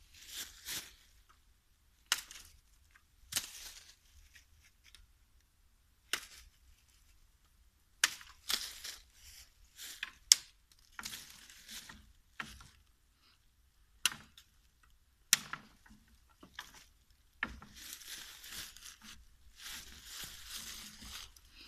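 Helle Lappland leuku, a long stainless-steel Sami knife, chopping into thin saplings and branches: about eight sharp chops, spaced irregularly a second or more apart. Between the chops and in a longer stretch near the end, dry fallen leaves rustle and crunch underfoot.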